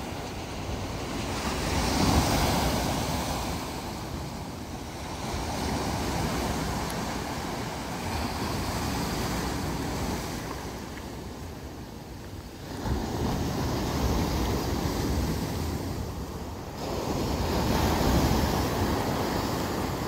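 Pacific Ocean surf breaking and washing over shoreline boulders, the wash swelling and fading in surges every few seconds, loudest about two seconds in and again near the end.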